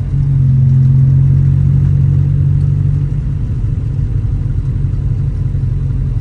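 Honda B18C1 1.8-litre DOHC VTEC four-cylinder engine pulling steadily on a drive through the gears. About three seconds in, its steady note eases into a rougher, slightly quieter running sound, as if backing off the throttle.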